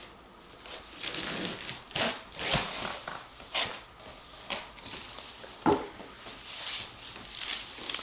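Cardboard box and packing material rustling, crinkling and scraping in irregular bursts as a boxed table is pulled out, with a few sharper knocks.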